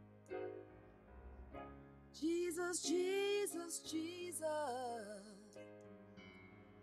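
Soft sustained chords on an electronic keyboard, with a woman singing a slow, wavering gospel phrase over them from about two seconds in.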